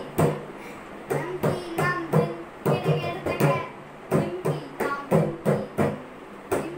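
Mridangam played in a steady practice rhythm, sharp strokes with a ringing low tone about three a second, with a boy's voice chanting the rhythm syllables along with the strokes.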